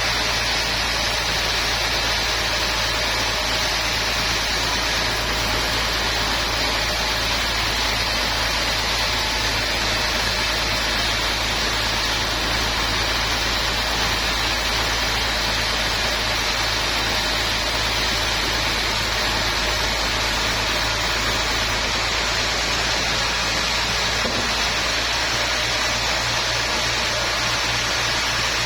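Sawmill machinery running steadily, a constant low hum under a broad hiss that does not change.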